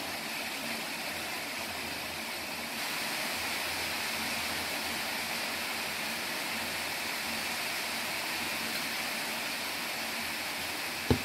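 Steady hiss of background noise, rising slightly about three seconds in, with a faint steady hum beneath it; a short low bump comes right at the end.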